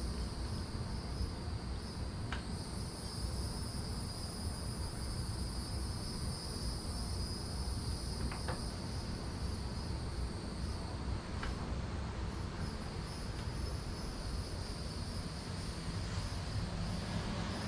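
Steady chorus of crickets, a continuous high-pitched trill, over a low background rumble, with a few faint light clicks.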